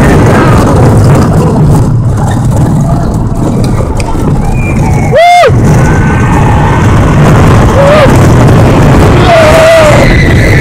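Roller coaster ride noise: a loud, steady low rush of wind and motion on the phone's microphone. A rider gives one short high scream about five seconds in, and there are a few briefer cries near the end.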